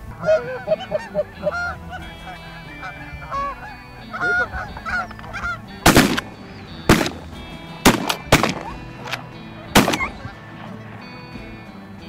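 A flock of Canada geese honking as they come in, then five shotgun shots in the second half, roughly a second apart, the third and fourth close together, with a few goose calls between them.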